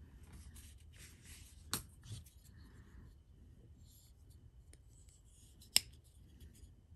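Faint rustling and scraping from handling a small knife and its packaging, with two sharp clicks about four seconds apart, the second one louder.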